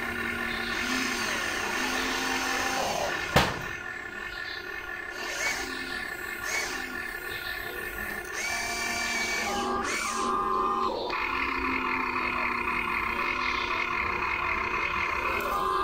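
Whine of a Huina RC excavator's electric motors as its boom, arm and bucket move. The pitches step up and down as each motor starts and stops, with one sharp click about three seconds in.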